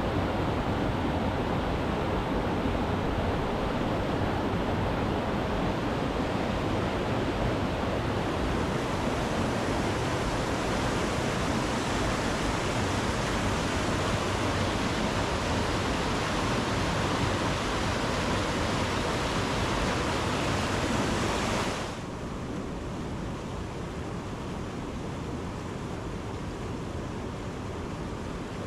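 Waterfall rushing steadily. About two-thirds of the way through it abruptly becomes quieter and duller.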